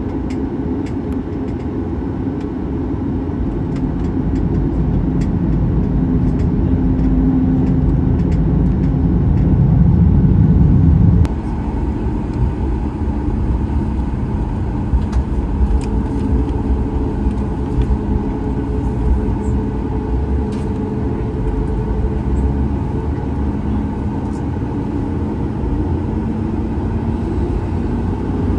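Cabin noise of a Boeing 737 MAX 8 taxiing, heard from a window seat over the wing: its CFM LEAP-1B engines running at taxi power over a steady low rumble, with scattered faint clicks. The heaviest low rumble drops away abruptly about 11 seconds in.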